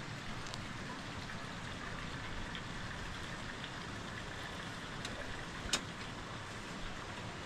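Steady rain falling, with one sharp click about three-quarters of the way through.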